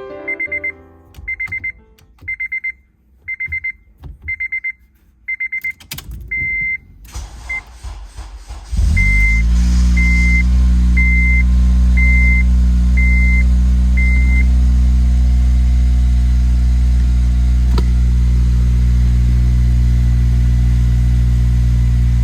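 An electronic warning chime beeps in pairs. About nine seconds in, the 8th-generation Honda Civic Si's four-cylinder engine starts and settles into a steady idle. During the idle the chime beeps about once a second, six times, then stops.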